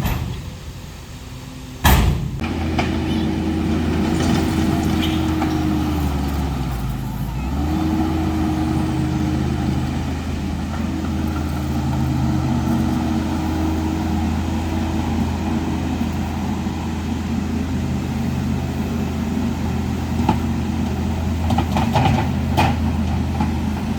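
A heavy equipment engine running steadily. There is a sharp bang about two seconds in, after which the engine is louder. Its pitch dips briefly and comes back up about seven seconds in, as if under load.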